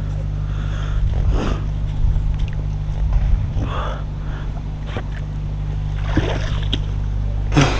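Motor boat engine running steadily, a low even hum, with faint voices and a few light knocks over it.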